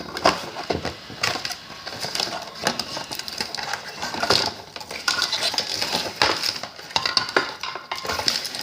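Packaging being pulled apart by hand: irregular crinkling and crackling of plastic and tape, with scattered sharp clicks.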